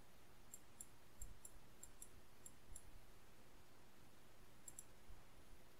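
Near silence: faint room tone with about a dozen faint, very high clicks scattered through it.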